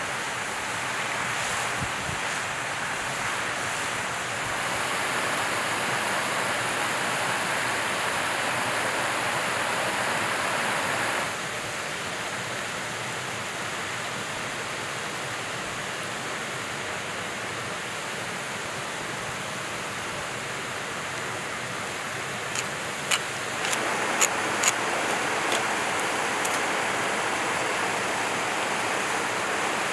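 Steady rushing outdoor ambience, a little quieter for a stretch from about eleven seconds in, with a few sharp ticks a little after twenty seconds.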